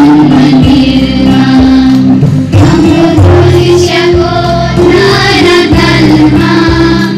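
A choir of schoolchildren singing a song together.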